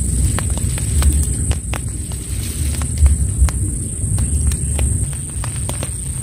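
Wind buffeting the microphone in uneven gusts, with scattered sharp ticks of raindrops as rain begins to fall. A steady high-pitched whine runs underneath.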